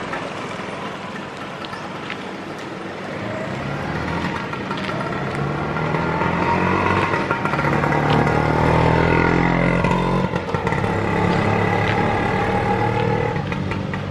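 A motor vehicle's engine over street noise. It gets louder toward the middle, its pitch falls as it is loudest, and it drops away about ten seconds in.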